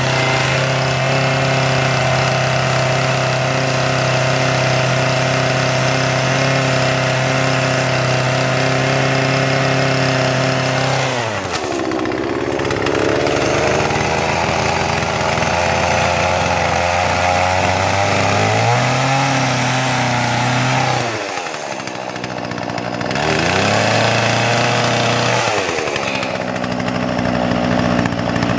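Poulan Pro two-stroke gas chainsaw running. Its engine holds a steady pitch for about ten seconds, then drops and picks up again several times.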